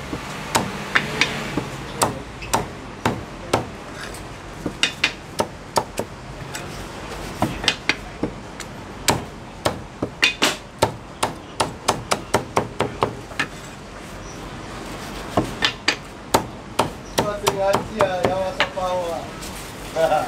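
Heavy meat cleaver chopping crispy roast pork belly on a thick wooden chopping block: a long series of sharp chops, some in quick runs of several strokes, others spaced out with short pauses.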